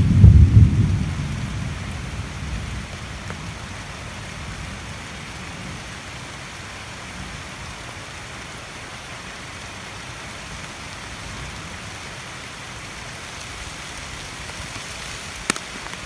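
Steady rain falling on tree foliage, an even hiss throughout. A deep low rumble fades away over the first two or three seconds, and a single sharp tick comes near the end.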